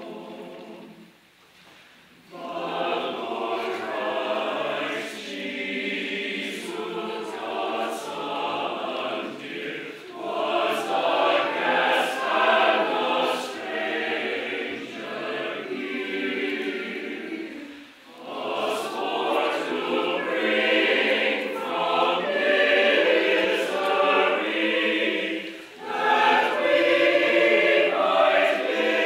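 Choir singing a Christmas carol in sung phrases, with a short break about a second in and brief pauses between later phrases.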